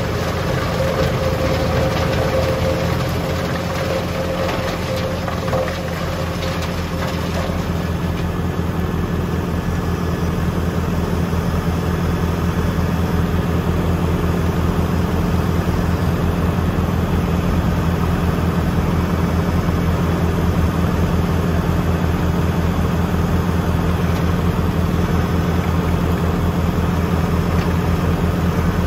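Tractor engine running steadily, driving a Junkkari HJ500 wood chipper. A higher hum over the engine dies away about seven seconds in.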